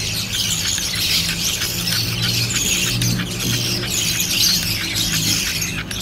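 Budgerigar chicks giving raspy, high begging calls over and over, with a steady low hum underneath.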